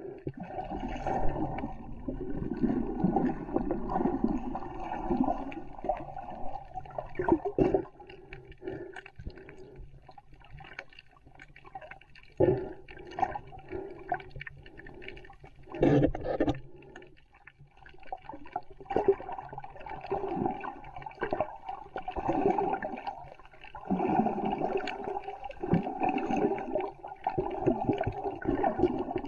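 Muffled water sloshing and gurgling picked up by a DJI Osmo Action camera's microphone held underwater. It comes in surges a few seconds long, with quieter gaps and a few sharp knocks.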